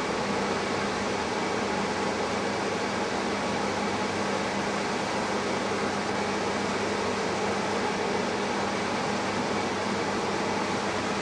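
Variable-speed blower running steadily at full speed: an even rushing of air with a steady low hum.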